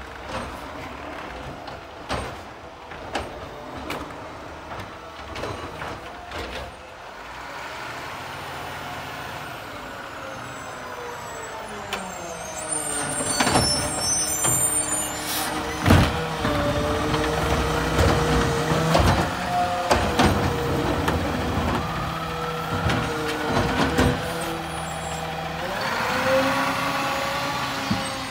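McNeilus automated side-loader garbage truck working a curbside pickup: scattered knocks as it pulls up, then from about halfway the engine revs up and holds a steady drone while the hydraulic arm lifts and dumps the trash cart, with several sharp bangs as the cart is shaken into the hopper. Near the end a rising and falling tone as the arm sets the cart back down.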